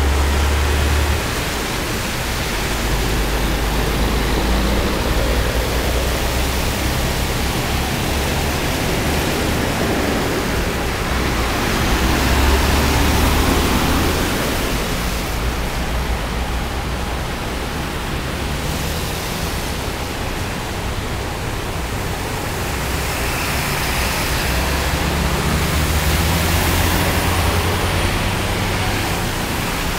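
Steady noise of freeway traffic driving through standing floodwater: tyres in the water and spray, with a low rumble that swells and fades a few times.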